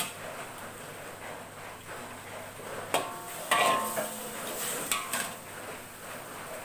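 Metal cookware clinking and clanking: a few sharp knocks, the loudest about three and a half seconds in, leaving a short ringing tone.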